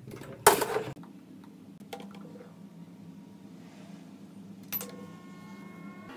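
Countertop air-fryer toaster oven being started: a short loud noise about half a second in, a few light clicks, then a sharp click near the end after which the oven starts running with a steady hum and whine.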